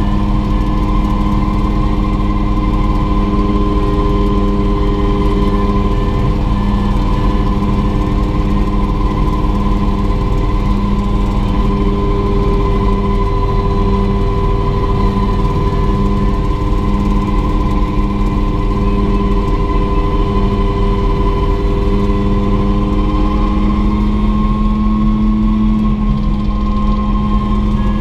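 Mosquito XET helicopter's turbine engine running steadily with the rotor turning: a constant high whine over a low drone that pulses evenly.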